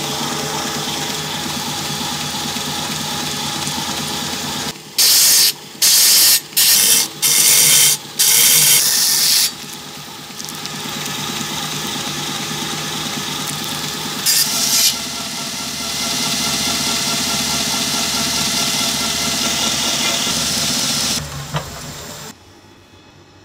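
Inverter-driven belt grinder running steadily, with a run of loud short grinding passes about five seconds in and another near fifteen seconds as a steel cleaver blade is pressed against the belt. The grinder cuts off near the end.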